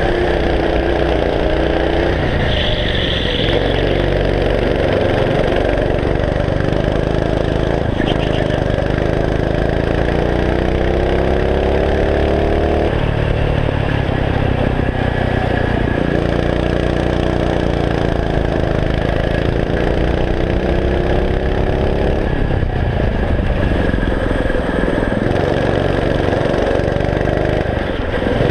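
Go-kart engine running hard, heard from on board. Its pitch climbs as the kart accelerates and drops away each time it lifts or brakes for a corner, several times over, with steady road and wind noise underneath.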